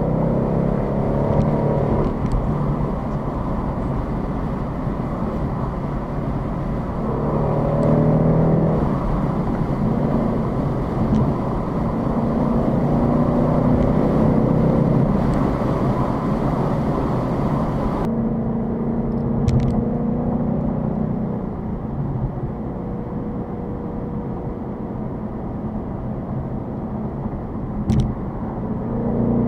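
Ford Mustang GT's V8 engine running under way with road noise, its note rising a few times as it accelerates. The hiss of the road cuts off suddenly about two-thirds of the way through, leaving a steadier, lower engine note.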